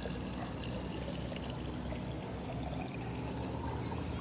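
Water being poured into a pot of water heating over a wood fire, a steady pour that runs on without a break.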